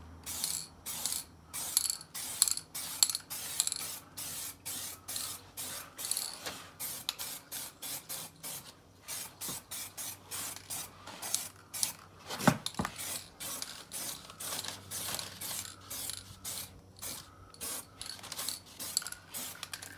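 Aerosol spray-paint can hissing in short repeated bursts, about two a second, laying on a light coat of red caliper paint. One sharp click about twelve seconds in.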